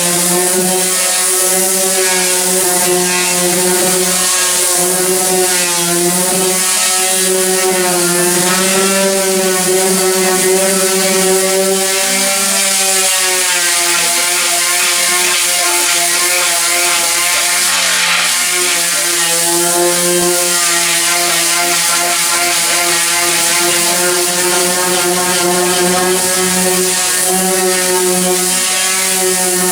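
Corded electric power sander running steadily, sanding old baked-on paint off a car's steel roof; its motor tone holds one pitch with slight dips now and then, over a steady abrasive hiss.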